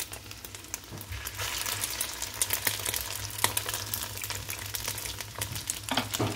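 Egg-coated chicken and macaroni triangles shallow-frying in oil: a steady sizzle with frequent crackling pops, which swells about a second in as another egg-dipped triangle is laid into the hot oil.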